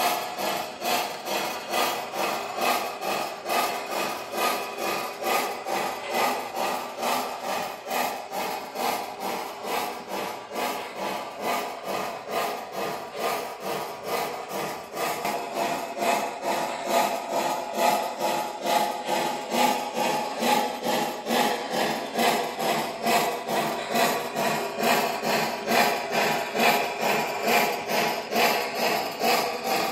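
O scale model steam locomotive's sound system chuffing steadily, about two to three chuffs a second, over a steady whir.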